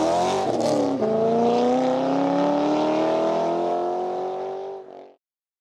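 A car engine accelerating, its note rising slowly and steadily, with a short break about a second in. The sound fades and cuts off about five seconds in.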